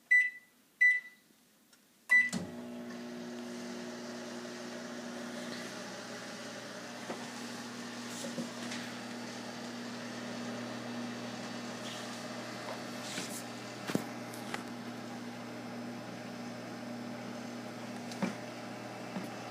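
Microwave oven keypad beeping three times as the buttons are pressed, then the oven starting about two seconds in and running with a steady hum, with a bag of popcorn cooking inside. A few sharp clicks stand out over the hum.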